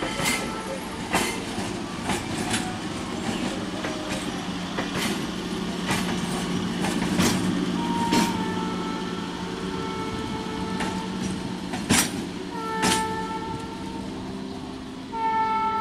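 Indian Railways electric multiple unit (EMU) local train passing close by, its wheels clicking over rail joints over a steady low hum. An EMU horn sounds faintly about halfway, gives a short toot a few seconds later, and a longer, louder blast near the end.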